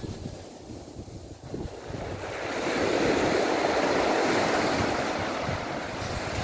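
Small waves breaking and washing up a sand beach: one wash swells about two seconds in and fades slowly. Wind buffets the microphone throughout.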